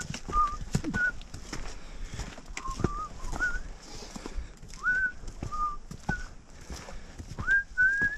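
A man whistling a tune in short, separate notes, some sliding upward, while he walks. Irregular taps of trekking poles and footsteps on the trail sound underneath.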